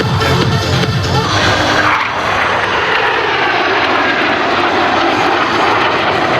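Northrop F-5E Tiger II jet fighters flying past, a loud, steady rushing jet noise that swells about a second and a half in and holds.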